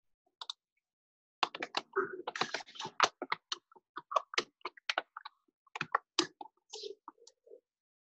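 Typing on a computer keyboard: an irregular run of quick key clicks that starts about a second and a half in, heard over a video call with the gaps between clicks cut to silence.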